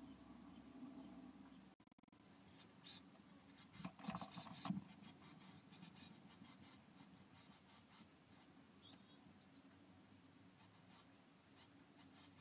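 Faint scratching and rustling of blue tit chicks shifting in their nest material inside the nest box, with bursts of short scratches and taps a couple of seconds in and again near the end.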